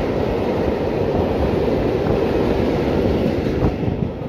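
Freight train of open coal wagons rolling past, a steady heavy rumble of wheels on rail with a few clacks over the joints, beginning to fade near the end as the last wagons go by.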